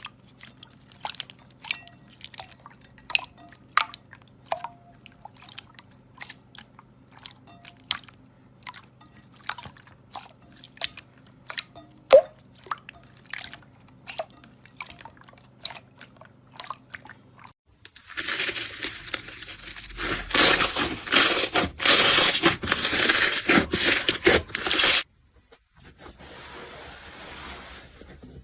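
Slime being handled: irregular sticky pops and clicks over a faint low hum, then, after a sudden change about eighteen seconds in, several seconds of dense, loud crunching, giving way to a softer hiss near the end.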